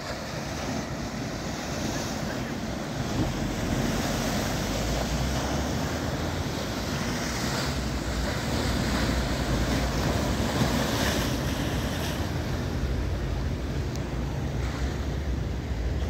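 Sea surf breaking and washing against concrete breakwater blocks, with wind buffeting the microphone in a steady low rumble. The sound grows louder over the first few seconds and then holds, with the surf swelling now and then.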